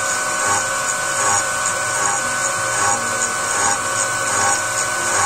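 Small CNC milling machine's 6 mm four-flute end mill cutting steel plate: a steady, high-pitched cutting noise of spindle and chips, with one constant whistle-like tone running through it.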